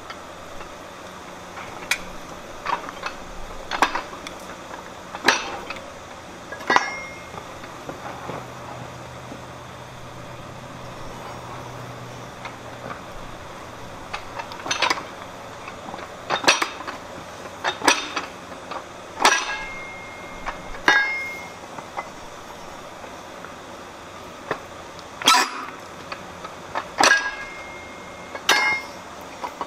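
Fly press blows driving a top tool into red-hot steel on a bolster plate: a sharp metallic clank with a brief ring at each stroke. About a dozen blows come roughly a second and a half apart, in three runs of three to five, over a steady background noise.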